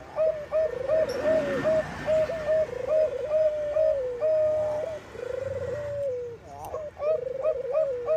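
Bangkok-type zebra doves (perkutut) cooing: a steady run of short clipped notes over repeated rolling, slightly falling trilled coos, one about every one and a half seconds.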